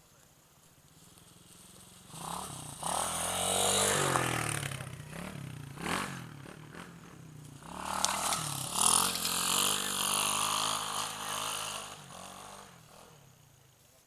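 Enduro motorcycle engine revving up and down as the bike rides past, swelling loud twice: about two seconds in and again about eight seconds in.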